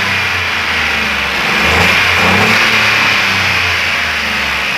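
Ford Ka three-cylinder engine running after a rebuild with new pistons, with a brief rise in revs about two seconds in. It runs smoothly with no knock, which means the piston slap caused by oil starvation is cured.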